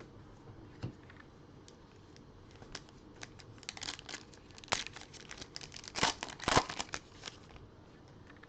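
Wrapper of a Contenders football trading card pack crinkling and tearing open: a few light clicks, then a run of dense crackles building over several seconds, loudest near the end.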